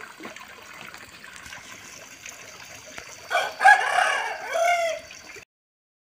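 A rooster crowing once, about three seconds in, over a faint trickle of water.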